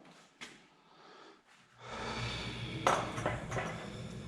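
A few light metallic clicks from engine parts and tools being handled, over a steady low hum that starts about two seconds in.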